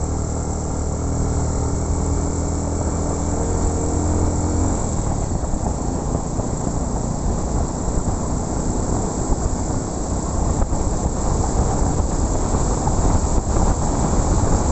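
Motorcycle riding on a dirt road: a steady engine hum, then after about five seconds a rough rumble of wind buffeting the microphone and road noise takes over, with a few knocks near the end.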